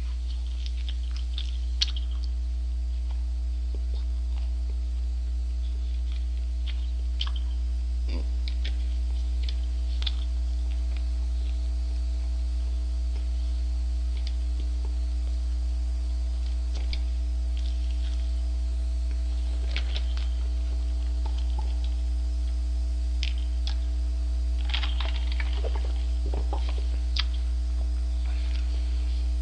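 A steady low hum runs throughout. Sparse small clicks and ticks sound every few seconds over it, more of them near the end.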